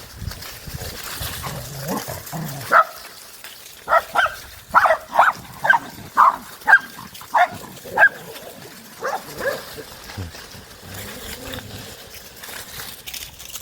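Dogs barking during play, a quick run of about a dozen short, sharp barks, most of them between about four and eight seconds in.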